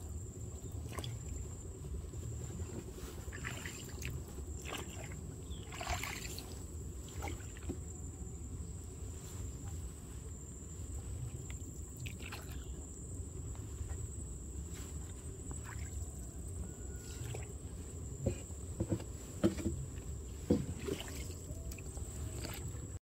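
Small wooden rowboat being paddled: water sloshing and trickling with the paddle strokes, with scattered knocks and a few sharper ones near the end.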